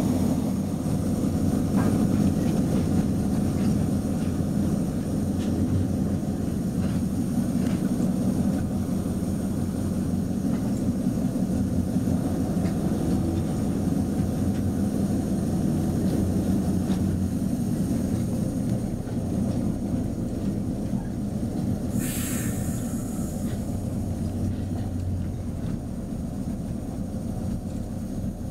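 BTH-built diesel locomotive's engine running with a steady drone, heard from its cab. A brief sharp hiss about three-quarters of the way through.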